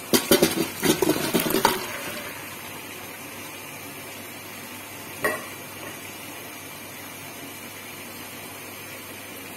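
Hot water and boiled bitter gourd pieces poured into a stainless steel colander: a splashing rush with metal clatter for about two seconds, then a steady low hiss. A single knock comes about five seconds in.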